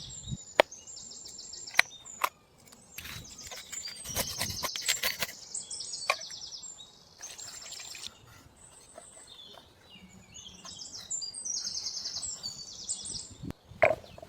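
Small birds chirping in quick repeated trills, with scattered sharp clicks and snaps.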